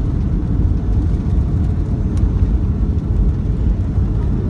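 Jet airliner rolling along the runway after touchdown, heard from inside the cabin: a loud, steady low rumble of engines and wheels on the runway.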